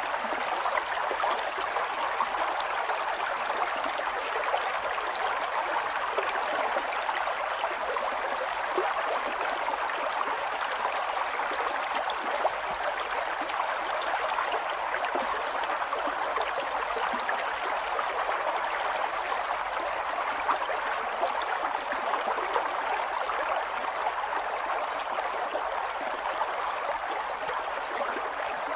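Water flowing steadily, like a running stream, with a constant rush and many small splashing ticks.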